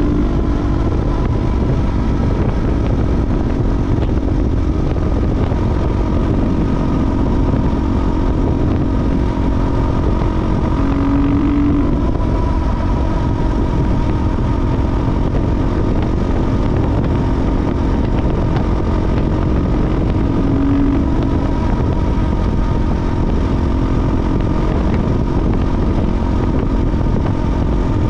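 KTM 450 EXC's single-cylinder four-stroke engine running under way at a fairly steady pitch, with a dense low rumble beneath it.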